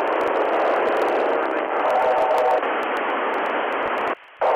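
FM radio static hissing through a ham transceiver tuned to the SO-50 amateur satellite's downlink, with no readable voice in it. The hiss cuts off abruptly about four seconds in and comes back a moment later.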